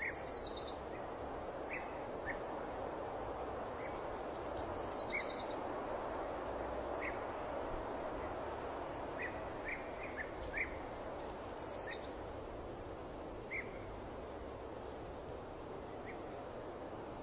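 Birds singing over a steady background hiss: one bird repeats a short high phrase that falls in pitch, about three times, with scattered short chirps between.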